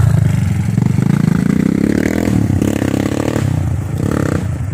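Motorcycle engine running while riding, its pitch rising as it accelerates over the first couple of seconds, then holding steady.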